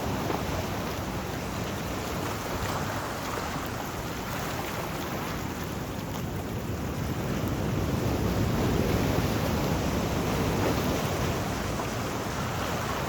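Sea waves washing onto the shore, a continuous rushing with one wave building louder about two-thirds of the way through.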